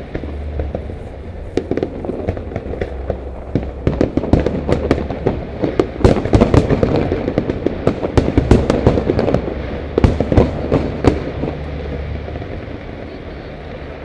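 Fireworks display: a rapid barrage of bangs and crackling reports, building to a dense, loud volley in the middle, then thinning out and dying away near the end.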